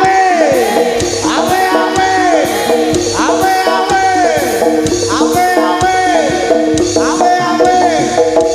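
Javanese jaranan (kuda lumping) music played loud through a sound system: a steady drum beat under held tones, with a falling pitch glide that repeats about once a second.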